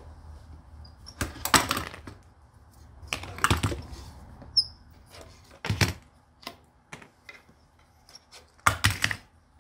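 Wooden handscrew clamps being loosened and taken off a glued-up wooden frame, with four wooden knocks and clunks as the clamps and the frame are handled.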